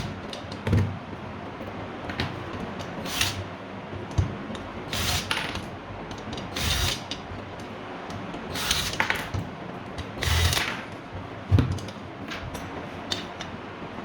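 Hand work with tools: a series of short rasping strokes every second or two, with a few sharp knocks, the loudest near the end.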